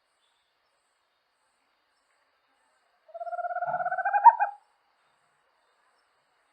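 A small Amazonian owl gives one trilled call, a fast run of notes that rises slightly in pitch and grows louder, ending on a stronger note.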